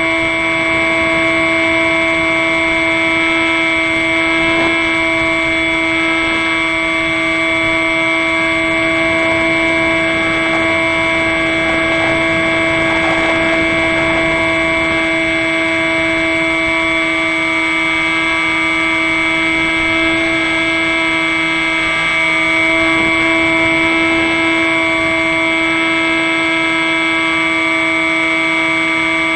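HobbyKing Sky Eye R/C plane's electric motor and propeller whining at a steady pitch in flight, heard through the onboard camera with rushing wind noise.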